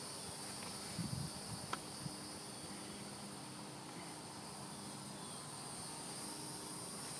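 Steady high-pitched insect chirring, with a few soft handling knocks about one and two seconds in.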